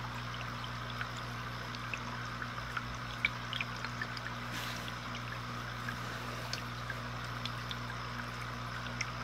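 Aquarium air bubbler running: a steady trickling of rising air bubbles with many small scattered pops, over a low steady hum.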